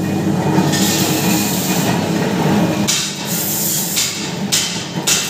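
Steady workshop machinery noise with a low hum. From about three seconds in, a run of sharp knocks comes roughly twice a second, like hammer strikes on metal.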